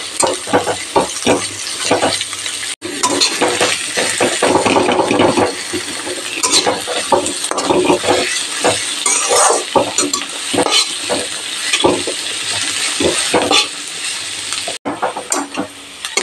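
Thinly sliced onions sizzling in hot mustard oil in a metal karahi, with the spatula scraping and knocking against the pan again and again as they are stirred; the onions are frying toward golden brown.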